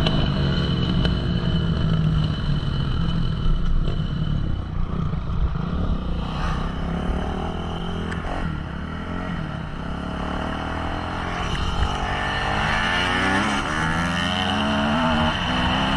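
Dirt bike engines running on the trail, the throttle opening and closing so the engine pitch rises and falls, most clearly near the end.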